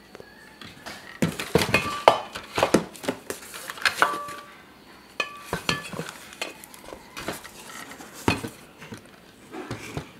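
Portable oxygen canisters with plastic caps clinking and knocking against each other as they are handled and lifted out of a cardboard box. A quick run of clinks comes in the first half, then a few scattered knocks.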